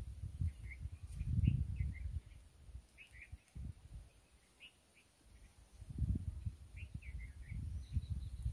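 Small birds chirping in short, scattered calls, over a low gusty rumble of wind on the microphone that drops away for a couple of seconds in the middle.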